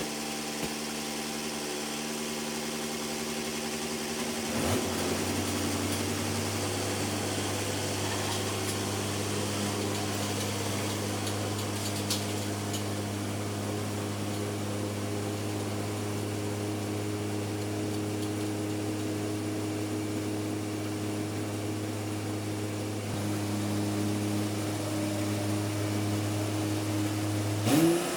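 Tractor engine running steadily at low speed; about five seconds in its note shifts, and near the end it revs up quickly.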